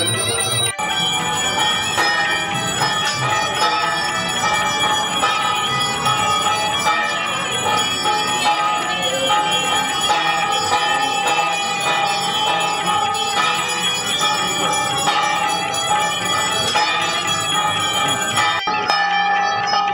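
Temple bells ringing continuously and rapidly, many ringing tones clanging over one another during a puja offering. The sound jumps abruptly about a second in and again near the end.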